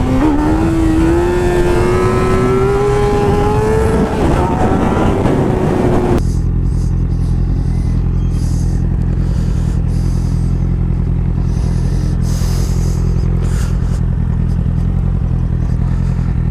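Vehicle engine accelerating hard, its note rising in pitch with a brief dip around four seconds in. About six seconds in it switches abruptly to a steady low idle.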